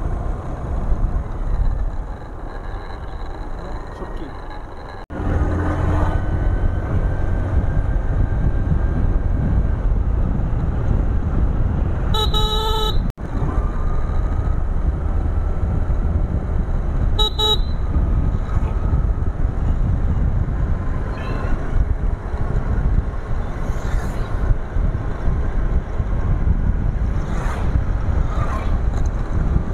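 Steady wind and road rumble from riding a motorcycle through traffic. A vehicle horn honks for under a second about twelve seconds in, and again more briefly about five seconds later.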